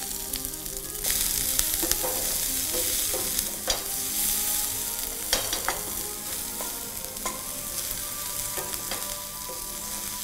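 Chopped onions frying and sizzling in hot oil with mustard seeds and curry leaves, stirred with a wooden spatula. Scattered sharp clicks and scrapes run through the sizzle.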